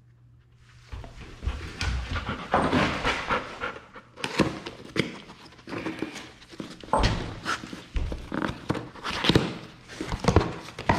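Golden retriever panting and sniffing close by, starting about a second in, mixed with the rustling and knocks of a cardboard box being opened beside her.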